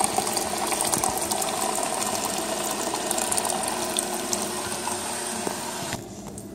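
A steady stream of water running into a plastic pitcher of lemonade powder, splashing as it fills, then shut off about six seconds in.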